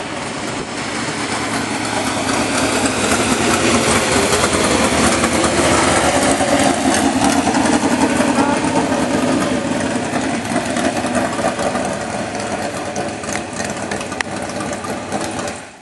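Dirt late model race car's V8 engine running as the car passes close by, growing louder to a peak about halfway through and then easing off.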